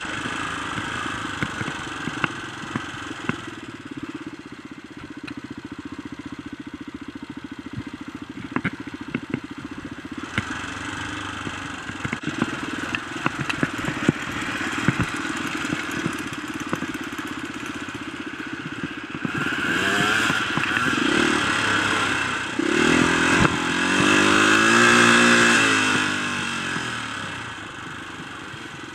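Dirt-bike engine running as the bike rides a rough dirt trail, with frequent sharp knocks and rattles. About two-thirds of the way through, the revs rise and fall several times and the engine gets louder, then eases off near the end.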